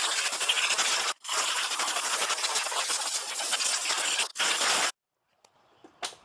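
Compressed-air blow gun hissing in long blasts, let off briefly twice and cut off sharply about five seconds in, followed by a light click near the end.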